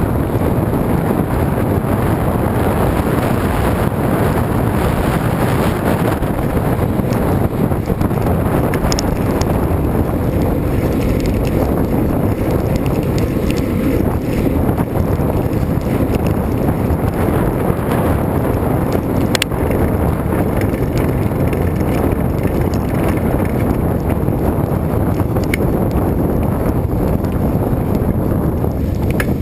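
Wind buffeting the microphone of a camera carried on a moving bicycle: a steady, loud, low rush, with an occasional faint click.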